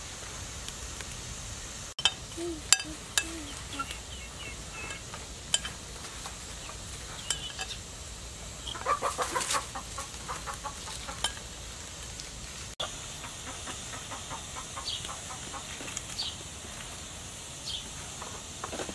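Metal ladle clinking a few times against an aluminium soup pot as fish is slid in and stirred, over a steady hiss. Chickens cluck in a quick run about halfway through.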